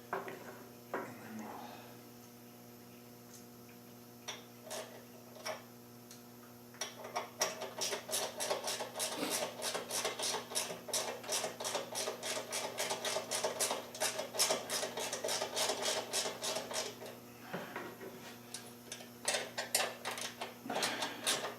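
Hand ratchet clicking rapidly and evenly, about six clicks a second, for some ten seconds from about seven seconds in, as a threadlocked fender bolt is run in. A few single metal clicks come before it, over a faint steady hum.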